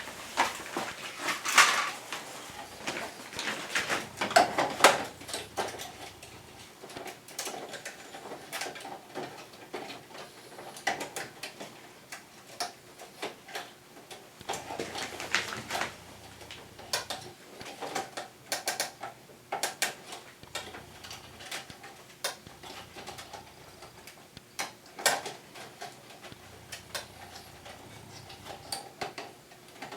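Irregular clicks, taps and knocks of an air conditioner's plastic parts and screws being handled by hand during disassembly or reassembly, with a few louder clusters of knocks.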